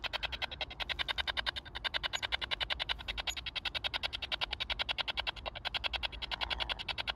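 Spirit box radio scanner sweeping through FM stations, giving a rapid, even chopping of static, about ten short bursts a second.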